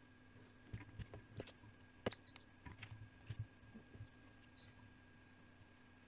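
Faint scattered clicks and taps from hand-soldering wires onto a circuit board pad, over a steady faint electrical hum. Short high beeps sound around two seconds in and again past the four-and-a-half-second mark.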